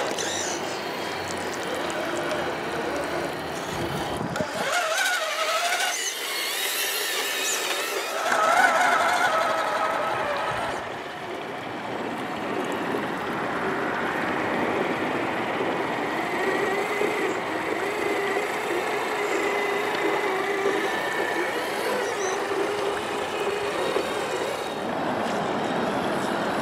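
Electric motor and gear drive of an RC scale crawler truck whining, its pitch rising and falling with the throttle as it crawls through wet mud, then holding steadier for a while.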